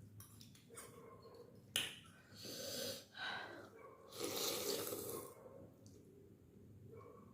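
Close mouth sounds of someone eating noodle soup: a click, then two breathy bursts of slurping and breathing, about two seconds in and again about four seconds in.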